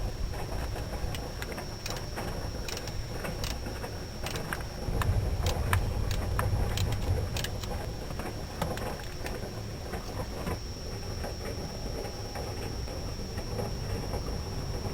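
Irregular metallic clicks and knocks of hand tools working on a car, as a starter motor is being unbolted, over a low rumble that grows louder for a couple of seconds about five seconds in.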